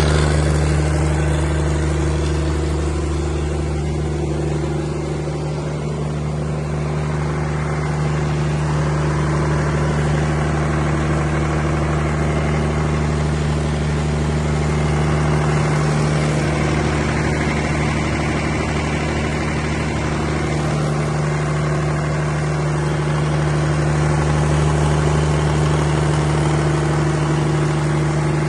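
180 kVA Cummins diesel generator set running at a steady speed, a constant deep engine hum with no change in pitch.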